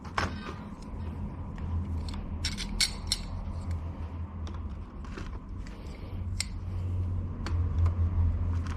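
Scattered light clicks and clinks of tools and metal parts being handled while squeezing a wiper linkage rod's socket so it will go onto its ball joint, over a steady low hum.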